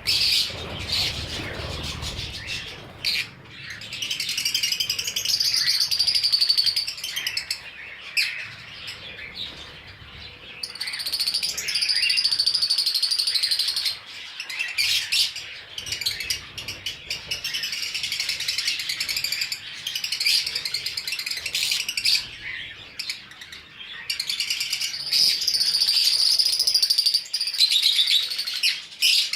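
Small pet parrots chirping and chattering without pause, with several stretches of rapid, shrill warbling.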